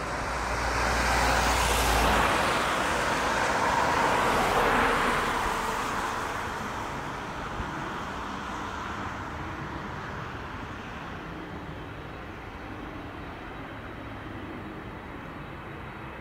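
Jet airliner passing by, its engine noise swelling to a peak in the first few seconds and then slowly fading away.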